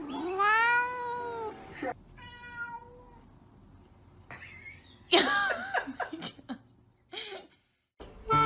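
Cats meowing: a long meow that rises and falls in pitch, then a shorter steadier one, a wavering drawn-out meow about five seconds in, and a brief one near the end.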